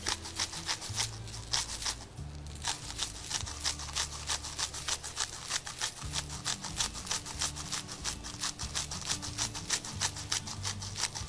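Garlic cream being beaten by hand in a bowl with a utensil: a quick, steady run of clicking strokes, about four a second.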